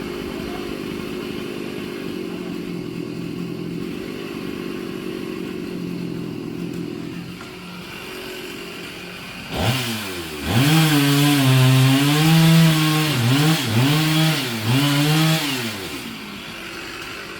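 Chainsaw running steadily, then revved hard from about halfway through, its pitch rising and sagging again and again as it cuts into the mahogany wood, before it eases off near the end.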